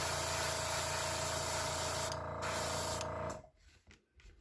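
Airbrush spraying paint onto a fishing lure: a steady hiss of air and paint with a steady hum under it, which dips briefly about two seconds in and stops about three and a half seconds in.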